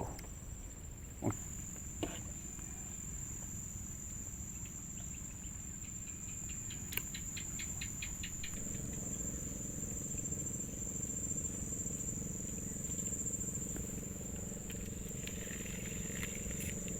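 Steady high-pitched insect trill, like a cricket, running unbroken, with a couple of short knocks in the first two seconds. A low steady hum joins about halfway through.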